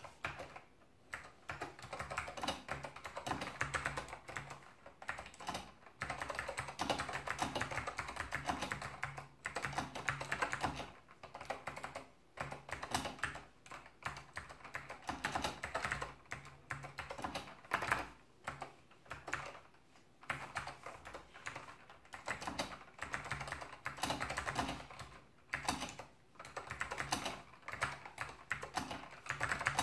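Typing on an FK-727 keyboard with Alps Blue clicky switches: a fast, steady run of key clicks, broken by short pauses a few times.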